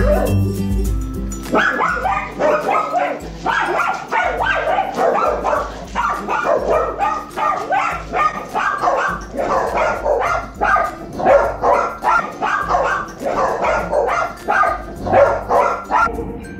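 Two dogs alarm-barking at the mailman outside, a rapid, almost unbroken string of excited barks, several a second.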